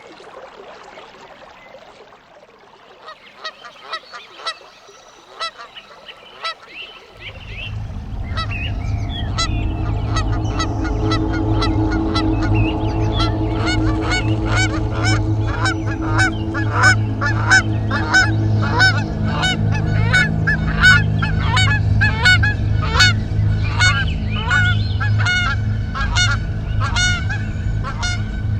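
A flock of birds calling over and over, sparse at first, then a dense overlapping chorus. About seven seconds in, a low steady drone joins them.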